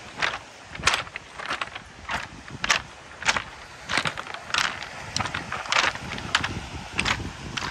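Footsteps crunching across a beach of large rounded pebbles and cobbles, the stones clattering together under each step, a little under two steps a second.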